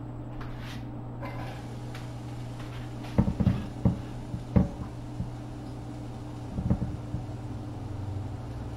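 Several sharp knocks and clunks of kitchen work, bunched between about three and five seconds in with a couple more near seven seconds, as sliced onion and poblano pepper are moved from a cutting board into a frying pan, over a steady low hum.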